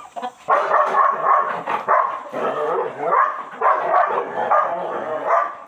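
Belgian Malinois barking in a quick, continuous run of barks and yelps, starting about half a second in.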